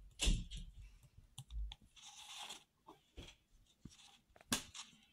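Sketchbook paper being handled: scattered sharp taps and clicks with a short paper rustle about two seconds in, the loudest taps near the start and near the end.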